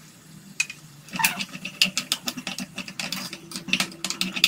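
Metal spatula scraping and clattering against a frying pan as a thick masala paste is stirred, in quick irregular strokes starting about a second in.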